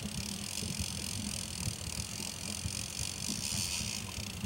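Steady low rumble with an even hiss above it, from a small open boat at sea: wind on the microphone and the boat's motion on the water.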